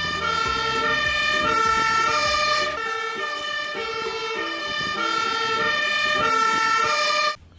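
Fire engine's two-tone siren sounding, switching steadily back and forth between a high and a low note; it cuts off abruptly near the end.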